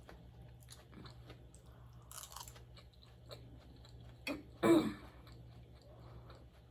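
Close-miked chewing of food: small wet mouth clicks and smacks, with a louder mouth sound about four and a half seconds in.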